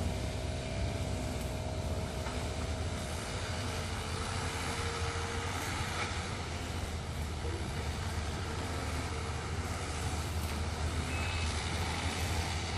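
Sumitomo hydraulic excavator's diesel engine running steadily, with a faint whine that dies away about four seconds in.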